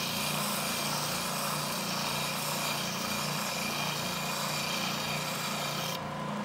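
Belt sander running with a wooden handle pressed against the moving belt, sanding the end of the turned wood: a steady grinding rush over the motor's hum. About six seconds in the wood is lifted off and the sander runs on alone, a little quieter.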